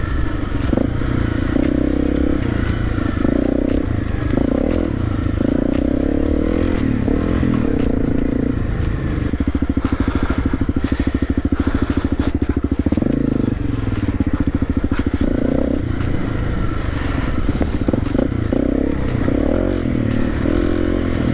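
Honda CRF250L's single-cylinder engine running through an aftermarket FMF exhaust as the bike is ridden, revs rising and falling. Around the middle it settles for a few seconds into low revs with an even pulse.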